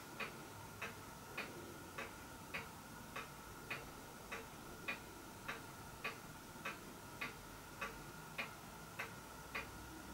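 Model solenoid beam engine running slowly, giving a faint, even click about 1.7 times a second.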